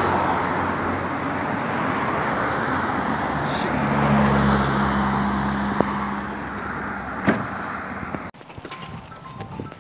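Road traffic noise beside a multi-lane road: cars passing with a steady rush of tyre and engine noise. A passing vehicle's engine hum holds steady for a couple of seconds near the middle. The noise cuts off abruptly about eight seconds in, giving way to quieter sound with scattered ticks.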